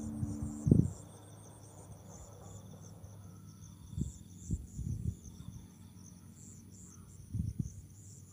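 Faint insects chirping in a steady, rapidly pulsing pattern, with a few short, dull low thuds around the middle and near the end. A music sting ends with a thud about a second in.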